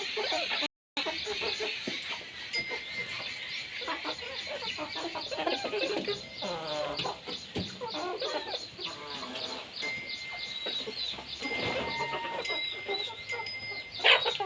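A large flock of chickens clucking and cheeping all at once in a continuous dense chatter, with louder individual clucks in the middle; the sound drops out completely for a moment under a second in.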